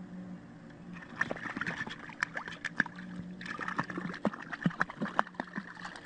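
Pool water splashing as a cat falls into a swimming pool and thrashes: a quick, irregular run of splashes starting about a second in and going on to the end, over a low steady hum.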